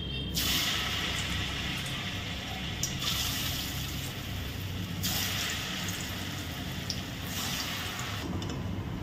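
Hot oil in a kadai sizzling as pieces of dhokar (lentil cake) are slid in to deep-fry. The hiss swells four times, once as each new piece goes in, and dies down shortly before the end.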